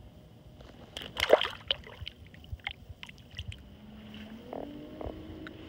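A small fish dropped from the hand splashes into the water about a second in, followed by a few light clicks and knocks of handling on the kayak. A low tone rises in pitch near the end.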